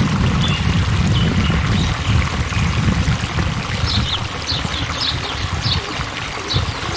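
Loud, steady low rushing noise, with a small bird chirping short, falling high notes about twice a second from about halfway through.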